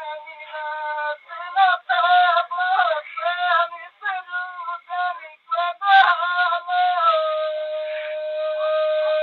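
A voice singing a Bagheli birha folk song in short, wavering phrases, then holding one long steady note from about two-thirds of the way through.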